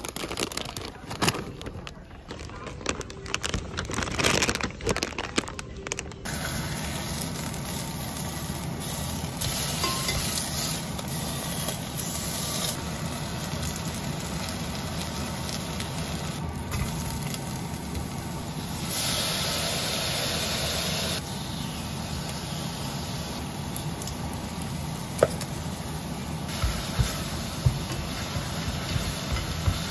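Plastic snack bags crinkling as they are handled, then meat and sliced onions sizzling steadily in a red enamelled cast-iron pot, turned now and then with metal tongs.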